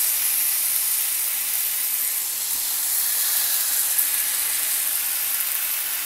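Marinated chicken legs sizzling in hot oil on a preheated grill pan: a steady hiss.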